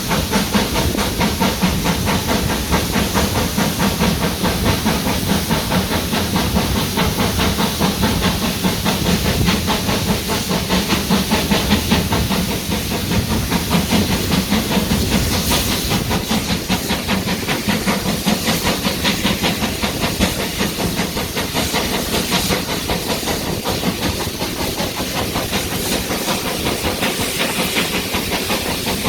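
Steam locomotive running along the line: a steady hiss of steam with a fast, even rhythm of beats throughout.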